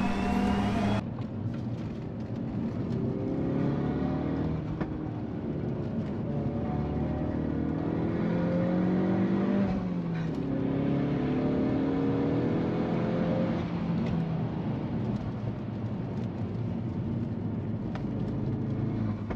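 Car engines running on a race circuit: one engine's pitch climbs as it accelerates, drops about ten seconds in and climbs again, then runs steadier.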